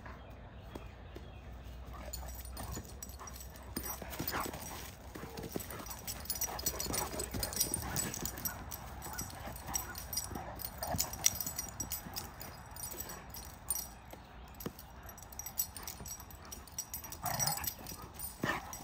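Two Great Danes play-fighting on grass: scuffling and rustling as they wrestle, with a few short whines and yips, the clearest near the end.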